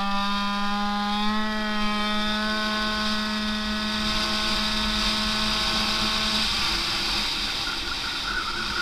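Yamaha Aerox scooter engine at full throttle on an acceleration run: the revs climb briefly, then hold at a steady high-pitched drone. About six and a half seconds in the engine note thins and wind noise grows.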